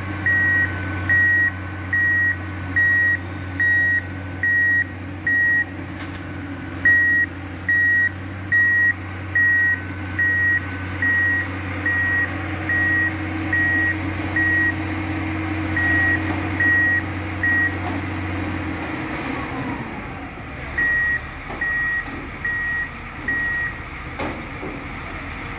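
Bauer BG 28 rotary piling rig's motion-warning beeper sounding in short high beeps about every 0.6 s, over the steady hum of its engine. The engine hum drops away about three-quarters of the way through, while the beeping carries on a few seconds longer before stopping.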